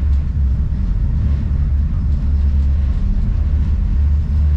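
Boat engines running at low manoeuvring speed, a steady low rumble while the boat is spun and held in place.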